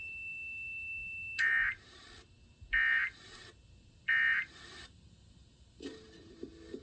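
Emergency Alert System end-of-message data bursts: three identical short, buzzy electronic squawks, about a second and a half apart, closing the relayed severe thunderstorm warning. A thin steady high tone comes before them, and station music starts up near the end.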